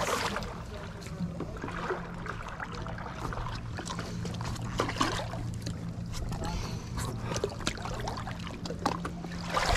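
A paddle stroking, splashing and dripping in shallow water as an inflatable stand-up paddleboard is brought in against a rocky shore, with a few short knocks and splashes. A steady low hum runs underneath.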